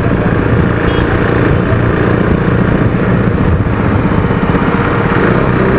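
Motorcycle engine running steadily while riding, with steady road and wind noise.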